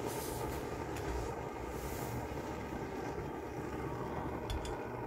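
Barthel benzine (petrol) camping stove burning steadily, its flame giving a constant rushing noise. A faint clink comes about four and a half seconds in as a frying pan is set on top.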